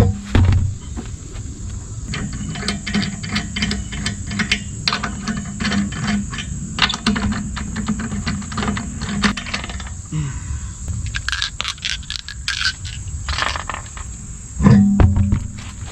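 Irregular metallic clicks and clinks, like hand tools and loose metal parts being handled, over a steady high chirring of insects.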